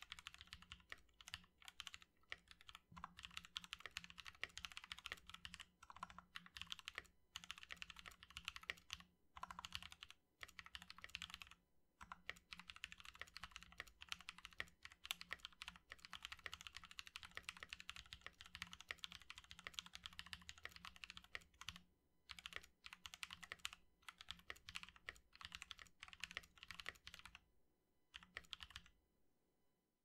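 Fast typing on a custom 60% mechanical keyboard with lubed and filmed Feker Holy Panda tactile switches, PBT keycaps, an aluminium plate and a plastic case: a dense stream of keystroke clacks with a few short pauses, thinning out near the end.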